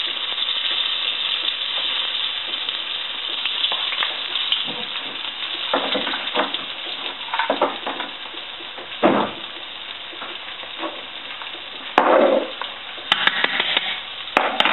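Steady sizzling hiss of frying under scattered knocks and clicks of kitchen utensils and spice containers against a stainless saucepan; the loudest knock comes about twelve seconds in, followed by a quick run of clicks.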